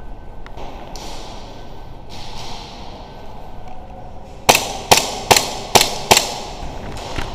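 Airsoft gun fired five times in quick semi-automatic succession, about two and a half shots a second, starting about four and a half seconds in.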